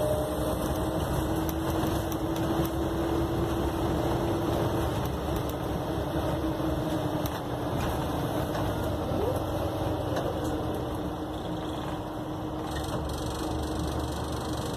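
Single-deck bus under way, heard from inside the passenger saloon: a steady engine drone and road noise with a faint hum and a few light clicks.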